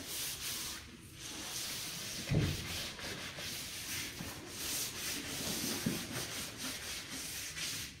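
Dunny brush (a bristle brush on a pole) scrubbing joint compound into a drywall internal corner: a continuous bristly rubbing that swells and fades with each stroke, with a dull knock about two seconds in.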